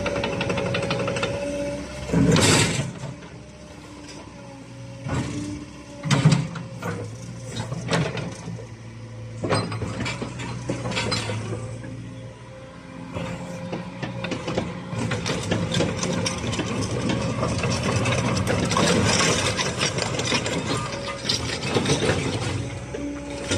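Cat 306.5 mini excavator's diesel engine running with a steady hum, broken by sharp metal clanks and knocks as the machine works, the loudest about two and a half and six seconds in.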